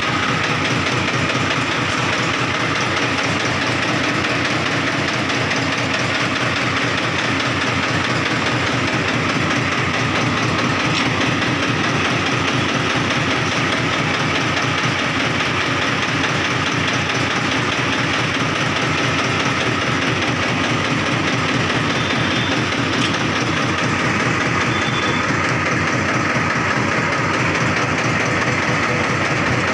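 HMT 2511 tractor's diesel engine idling steadily, an even, unbroken chugging.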